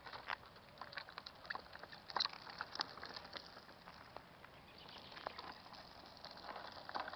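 Child's plastic tricycle rolling over wet asphalt: faint, irregular clicks and crackles of the wheels on the grit.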